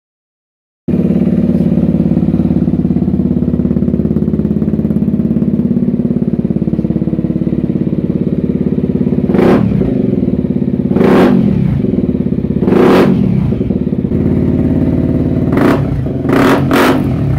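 2017 Honda CRF250L's single-cylinder four-stroke engine running through an Arrow X-Kone exhaust with the dB killer removed, idling steadily from about a second in. Partway through it is revved three times, then blipped several times in quick succession near the end.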